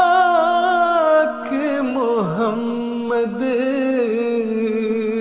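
Male voice singing a wordless interlude of a devotional Urdu nazm: long held notes with vibrato that turn into a melismatic run about two seconds in, over a steady sustained drone.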